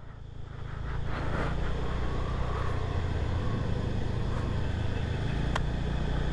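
Motor scooter's small single-cylinder engine running steadily under way, growing louder over the first second as the scooter picks up speed. A single sharp click comes about five and a half seconds in.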